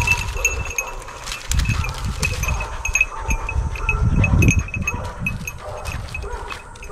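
Hunting dogs sniffing and whining around a brush pile, with rustling in the brush and a steady, high, pulsing chime over it.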